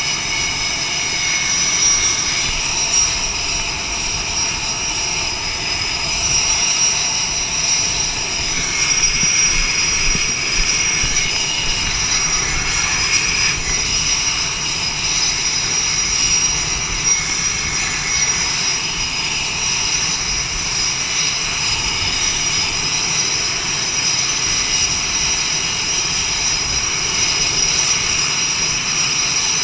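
F/A-18 jet engines running steadily while the jet waits on the catapult: a constant high-pitched whine over a continuous rush of noise.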